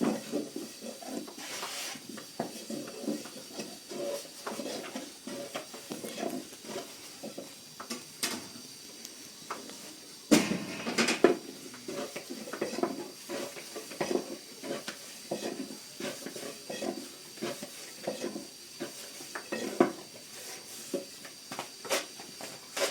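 Clatter of pots, pans and utensils being handled: irregular clinks and knocks, with a louder pair of knocks about ten and eleven seconds in.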